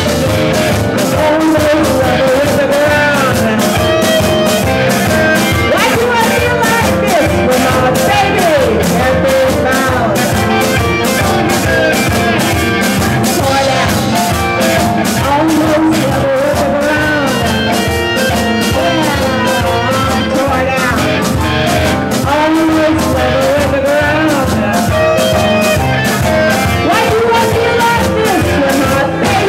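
Live blues-rock band playing: electric guitars and a drum kit keeping a steady beat, with a woman singing.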